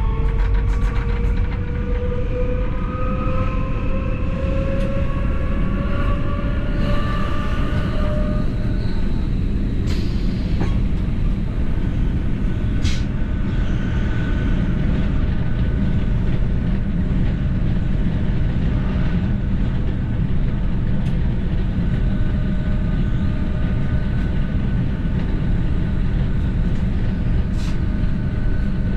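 ABe 4/12 'Saphir' electric railcar on the move: its traction motors whine in several tones rising in pitch as it accelerates, fading out about eight seconds in. After that comes a steady rumble of wheels on the rails with a faint steady tone and a few sharp clicks.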